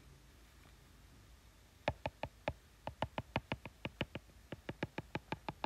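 Stylus tip tapping on an iPad's glass screen: a quick run of sharp clicks, about five a second, starting about two seconds in, as short dashes of a line are drawn.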